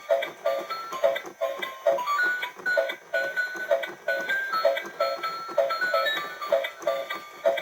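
A simple electronic tune: a short note repeating evenly two to three times a second under a stepping melody.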